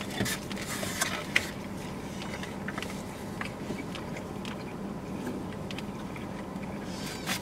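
Quiet eating sounds inside a car: chewing and scattered small clicks and scrapes of utensils against takeout containers, over a steady low cabin hum.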